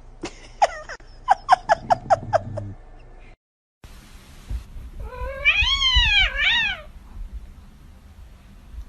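A cat meowing: a quick run of about eight short, clipped meows, then a long, loud meow that rises and falls, followed by a shorter one. The two parts are separated by a brief cut to silence.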